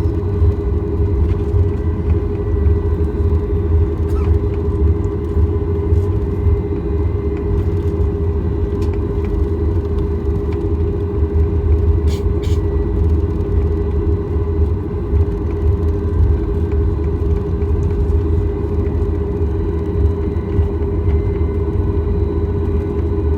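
Steady cabin noise inside a Boeing 737 MAX 8 on the ground: a deep engine and airframe rumble under a constant hum, with two faint clicks about halfway through.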